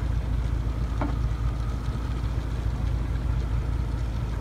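Fishing boat's engine running steadily under way at sea, a continuous low rumble.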